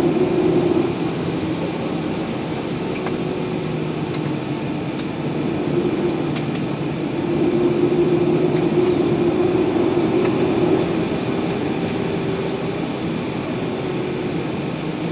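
Cabin noise inside a Boeing 737-800 taxiing at low speed: its CFM56-7B turbofan engines idling with a steady hum and a low drone that swells for a few seconds about halfway through, over the rush of the cabin air.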